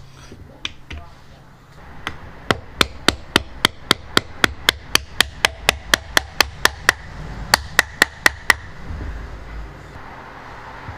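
Rapid hammering: about two dozen sharp blows at roughly four a second, with a brief break before the last four.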